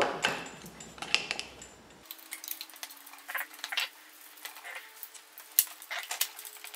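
Scattered light metallic clicks and taps of a screwdriver prying C-clips off the pivot pins of an Allis-Chalmers 310 tractor's front axle.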